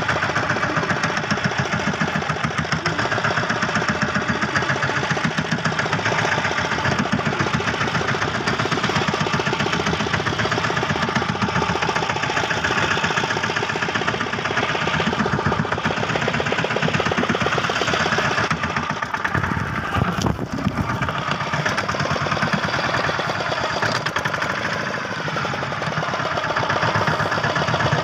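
Fishing boat's engine running steadily, a fast, even chugging with no let-up.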